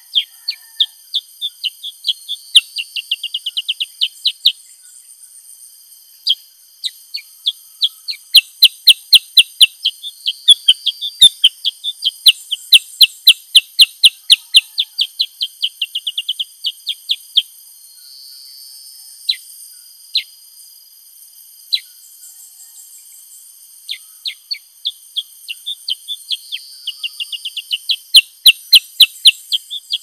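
Black-headed bulbul calling in runs of sharp, quick downward chirps, several a second, in bouts broken by short pauses. A steady high insect drone runs underneath.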